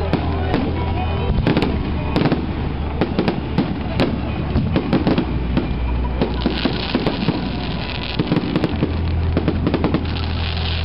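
Fireworks bursting in the sky: a dense, irregular run of sharp bangs and crackles, over music playing underneath.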